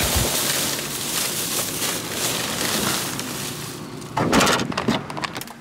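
Thin plastic shopping bags rustling and crinkling as they are handled and loaded into a car, with a few louder knocks and rustles about four seconds in.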